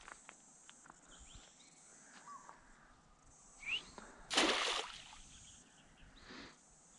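Quiet outdoor creek-bank background with a few faint, short bird chirps, one of them rising. About four seconds in comes a brief loud burst of noise, the loudest sound here, and a fainter one about two seconds later.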